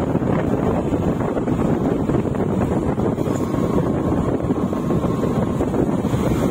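Wind rushing over the microphone of a moving motorcycle, a steady drone with the engine and road noise underneath.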